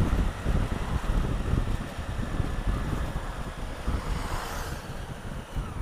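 Wind buffeting the action camera's microphone while riding, over the low rumble of the Honda Africa Twin CRF1000L's parallel-twin engine. A brief swell of hiss comes a little past four seconds in.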